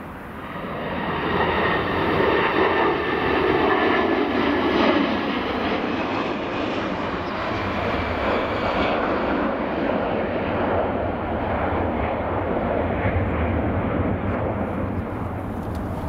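Jet aircraft engine noise swelling up over the first second or two and then holding steady, with a whine that slowly drops in pitch.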